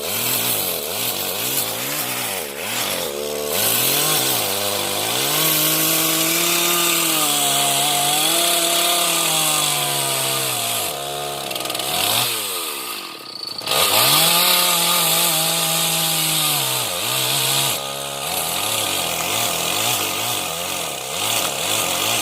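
Chainsaw engine running hard while cutting into a mahogany trunk. It blips up and down at first, then holds high revs for several seconds at a time. About thirteen seconds in it falls briefly to low revs before revving up again.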